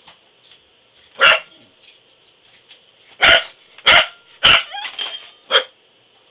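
Pembroke Welsh Corgi barking: five short, sharp barks, one about a second in and four more close together in the second half.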